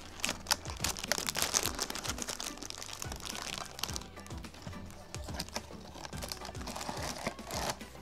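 Plastic snack wrapper crinkling and crackling in the hands in dense, irregular bursts, over background music.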